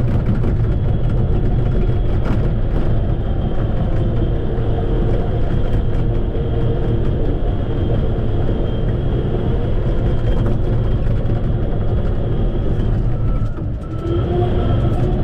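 Shantui bulldozer's diesel engine running steadily under work, with a high whine above the rumble. It eases off briefly near the end, then picks up again at a changed pitch.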